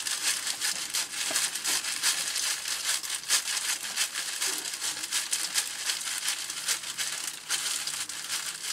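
Plastic bag of stir-fry vegetables crinkling as it is squeezed and shaken out over an Instant Pot, the pieces tumbling into the pot. A continuous dense crackle of small clicks.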